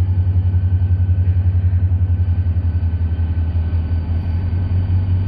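Diesel engine of a Pakistan Railways GMU-30 locomotive running under throttle as it starts a loaded goods train, a steady deep pulsing note with a faint steady whine above it.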